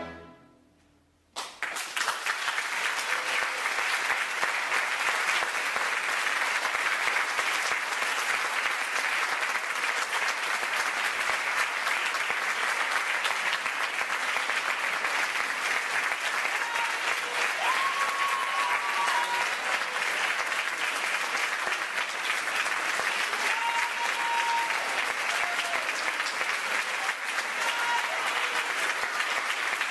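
A symphony orchestra's final chord dies away. After about a second and a half of hush, a concert audience breaks into applause, which then carries on steadily.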